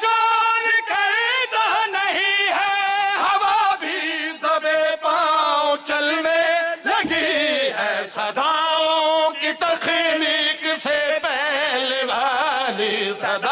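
A man chanting a devotional qasida in long, drawn-out melismatic phrases, his pitch wavering, with short breaks for breath.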